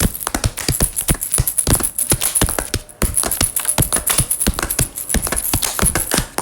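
Rapid, irregular clicking, many clicks a second, over a faint steady high tone, with a short break about three seconds in: an Eilik desktop robot's sound effect.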